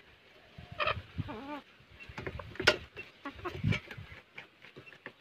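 Domestic hens giving short clucking calls about a second in, among scattered clicks and low knocks; the loudest sound is a single sharp click near the middle.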